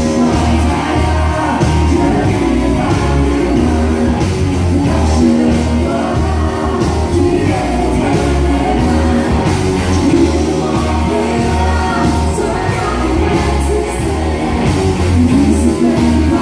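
Live country-rock band playing amplified: a woman's lead vocal over acoustic and electric guitars, bass guitar and drums, with a steady pulsing bass beat.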